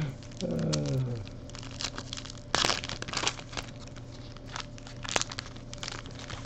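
Foil trading-card pack being torn open and crinkled by hand: a run of irregular crackles, loudest about two and a half seconds in.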